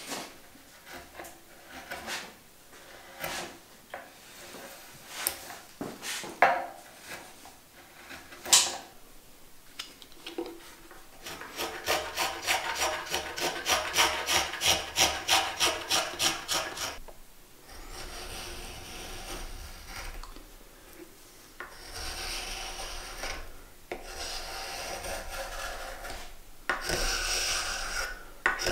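Hand carving gouges cutting a channel in a block of oak. First come a series of separate sharp slicing cuts, then quick even scraping strokes about three a second, then a steadier scraping from a curved gouge as it scoops and smooths the groove.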